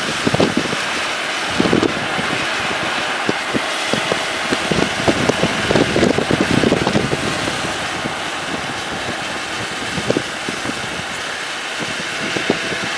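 Strong wind rushing, with gusts buffeting the microphone in frequent short low thumps.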